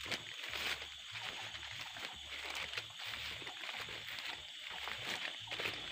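Footsteps and the rustle and crackle of leaves and branches brushing past as someone walks quickly through dense rainforest undergrowth, over a steady high insect hum.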